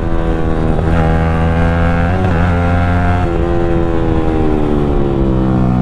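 Yamaha R15 V3's single-cylinder engine running under way, its note steady at first, then dropping about three seconds in and easing lower as the throttle comes off.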